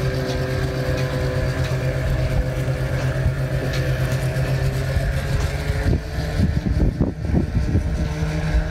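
Boat engine running at a steady idle, a constant low hum. About six seconds in, a short run of irregular low thumps.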